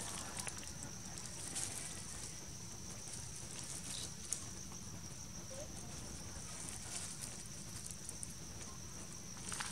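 Quiet outdoor ambience with a steady high-pitched tone and a low rumble, broken by a few faint, short rustles of dry leaves as a baby macaque moves in them.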